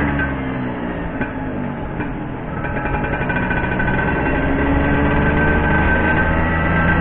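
Vintage Vespa scooter's two-stroke single-cylinder engine running while riding. The revs ease off in the first couple of seconds, then pick up again a little before halfway and hold steady.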